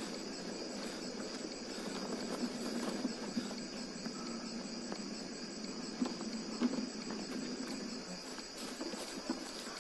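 Crickets chirping steadily at night, with a few soft scattered rustles and snaps of footsteps moving over dry leaf litter.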